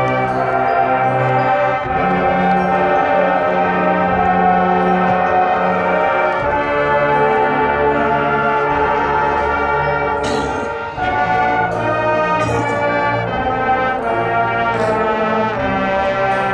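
High school marching band playing a loud, sustained brass passage in full chords, with a few sharp percussion hits in the second half.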